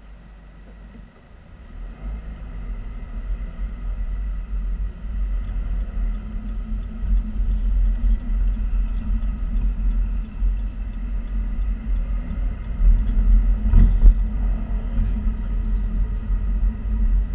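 Low road and engine rumble heard inside a car's cabin as it pulls away and drives, swelling from about a second in. A short thump, the loudest moment, about fourteen seconds in, like the car jolting over a bump.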